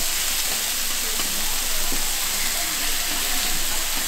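Thick beef skirt steak frying on a hot cooking surface, a steady sizzling hiss.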